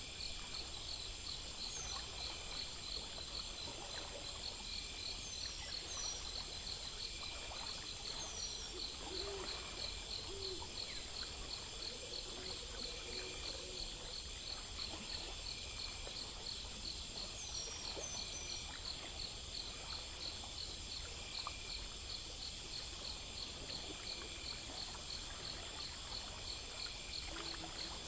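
Insects chirping together in steady, rapid, evenly spaced pulses, with a few short high chirps. A faint stream trickles underneath.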